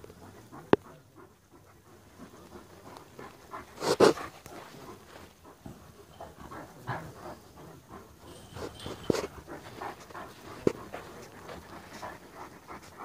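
A large dog panting in quick, steady breaths. One louder, sharper sound about four seconds in, and a couple of brief clicks.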